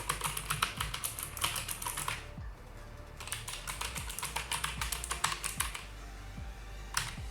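Gamdias Hermes P2A mechanical gaming keyboard being typed on fast, its key switches clicking in rapid runs. The typing stops twice for about a second, after about two seconds and again near the end.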